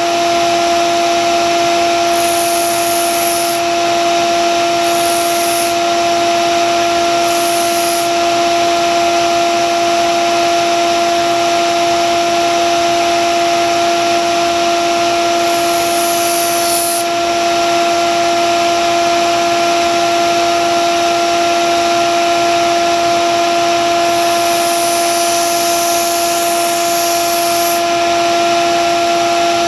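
Grizzly benchtop belt sander running with a steady motor hum while a steel kitchen knife blade is ground on the abrasive belt. A hiss of steel on the belt comes and goes in several passes and stops a couple of seconds before the end.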